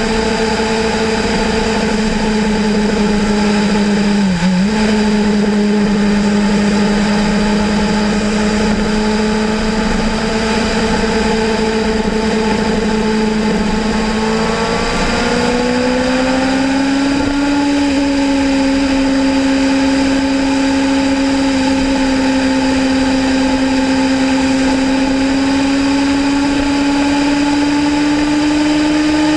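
Kawasaki Ninja ZX-6R sportbike's inline-four engine running at a steady cruise. Its note dips briefly about four seconds in, then rises as the bike accelerates about halfway through and holds at the higher pitch.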